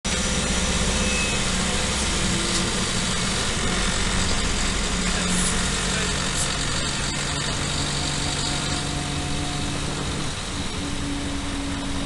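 City bus engine running, heard from inside the passenger cabin as a steady low drone with a broad rumble; the engine note shifts about halfway through and again near the end.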